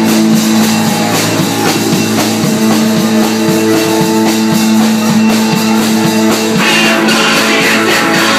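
Live band playing loud: held keyboard chords over a steady drum beat. The sound turns brighter and noisier about two-thirds of the way in.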